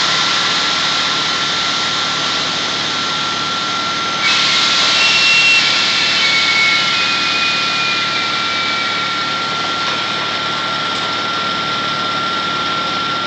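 T4W air-rotary well-drilling rig running hard, its compressed air blasting cuttings and water out of the discharge pipe in a steady rushing hiss with a constant high whine. About four seconds in, the blast gets suddenly louder.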